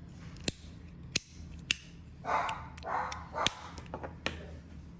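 Metal Mahjong fidget slider, probably the zirconium one, being slid back and forth: about six sharp, separate clicks as the tiles knock into place. Two short, breathy noisy sounds come a little after the middle.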